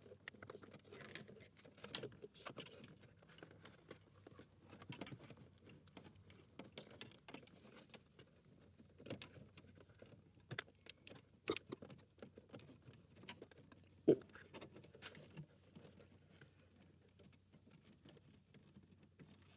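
Faint, scattered clicks, taps and light rattles of hands feeding a blend door cable through the dashboard and behind the trim, with one louder knock about fourteen seconds in.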